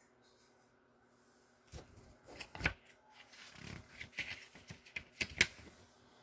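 Pages of a paperback picture book being turned and handled: irregular paper rustling with a few sharp clicks, starting about a second and a half in.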